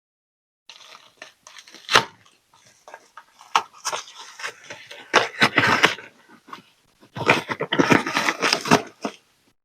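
Plastic packaging crinkling and rustling as it is handled and opened, with irregular sharp crackles. The loudest bursts come around the middle and again near the end.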